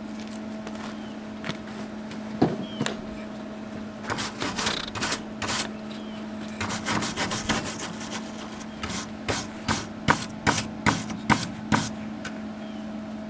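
Repeated short rubbing strokes, as of hand scraping or brushing, in quick bunches and then about two a second near the end, over a steady hum.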